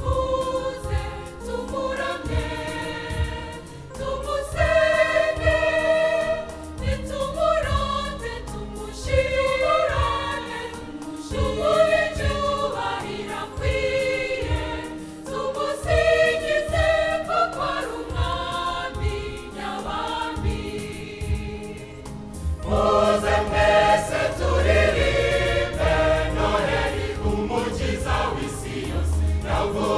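Large mixed choir singing a Christmas carol in phrases, the sound growing fuller about three quarters of the way through.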